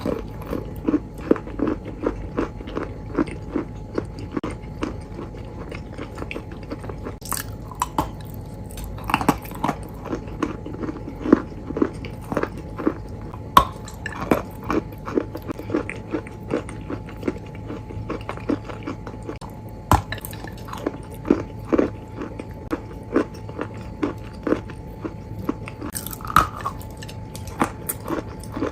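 Close-miked chewing of crunchy food, a run of crackling bites and crunches a few times a second, with louder crunches here and there, over a steady faint hum.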